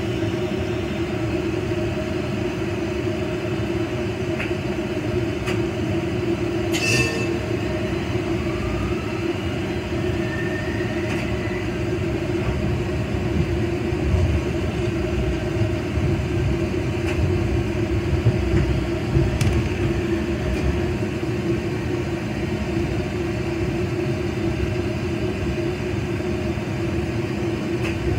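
Steady running hum and rumble of a Toyama Light Rail TLR0600-series tram, heard from inside the car behind the driver's cab as it rolls slowly toward its stop. A few faint clicks, a brief high-pitched sound about seven seconds in and a faint rising whine around ten seconds sit over the steady hum.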